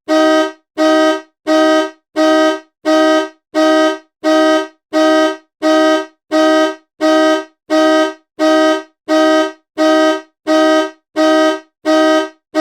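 Car horn honking in short, evenly spaced blasts, about three every two seconds, each blast sounding the same two-note chord.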